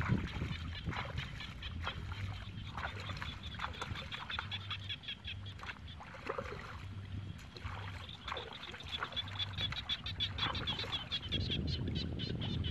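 Hands splashing and sloshing in shallow muddy water while feeling for fish. In the second half a rapid, evenly repeated chirping call from an animal joins in.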